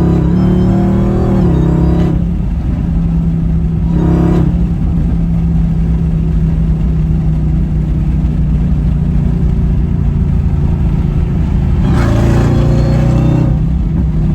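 Supercharged V8 of a Dodge Hellcat heard from inside the cabin, running at a steady drone while driving. The engine note shifts slightly about a second and a half in and again near the end.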